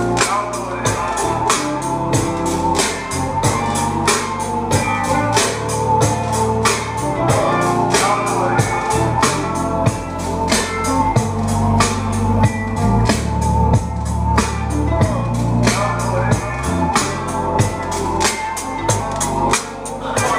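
Music with a fast, steady drum beat and heavy bass, played loud through a Rockford Fosgate marine stereo system (6-inch marine speakers driven by an M600 amplifier) fitted in a side-by-side.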